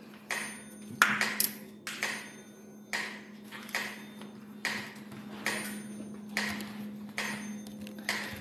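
Mechanical metronome ticking about once a second, each tick a sharp click with a short ringing tail, over a faint steady hum. It is the pendulum metronome that the streamer says started swinging on its own.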